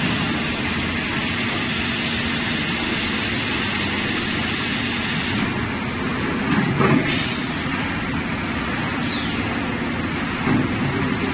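QFW-120 automatic roof tile making machine running: a steady mechanical din over a low hum, with short louder bursts about seven and ten seconds in.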